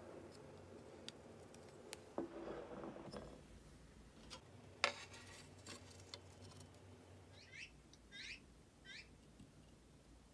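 Quiet handling sounds of a wax candle piece on a metal baking tray: a soft scrape about two seconds in and a sharp tap a little before the middle as it is set down. Near the end a small bird chirps three times, each a quick falling note.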